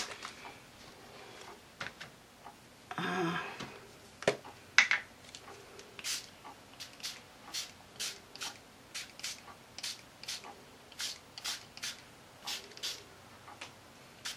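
Lindy's Stamp Gang finger-pump spray bottle being pumped over and over, a short hiss of mist about twice a second, starting about six seconds in; a couple of clicks come just before.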